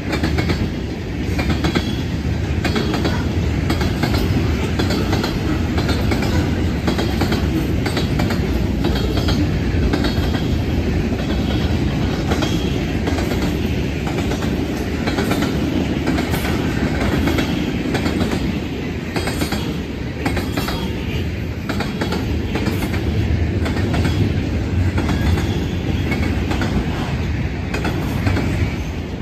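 Freight train cars rolling steadily past: a loud, continuous rumble with the clickety-clack of steel wheels over rail joints. The cars are tank cars, open-top gondolas and autoracks of a mixed manifest train.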